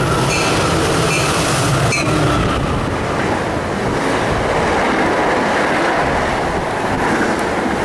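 MBTA commuter rail train passing close by at speed: a loud, steady rush of wheels on rail and moving air as the bilevel coaches go by. A bell rings a few evenly spaced strokes during the first two seconds.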